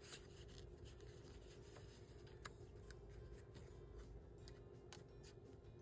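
Near silence with faint, scattered ticks and rustles of paper and small craft pieces being handled, over a low steady hum.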